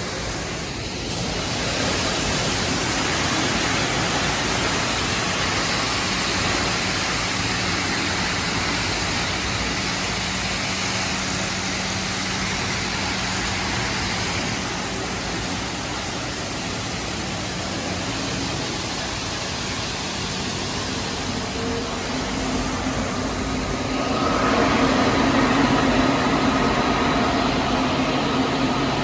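Automatic tunnel car wash running: a steady rush of water spraying and machinery working. Near the end it grows louder, and a steady hum joins in.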